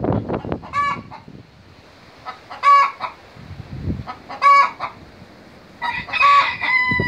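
A hen's egg song after laying. Four loud squawking cackles come about two seconds apart, and the last one is drawn out near the end.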